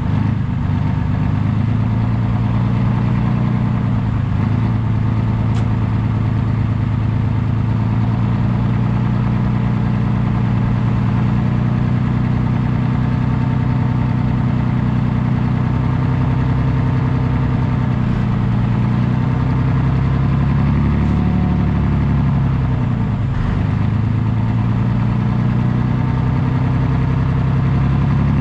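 Abbot FV433 self-propelled gun's Rolls-Royce K60 multi-fuel engine running steadily.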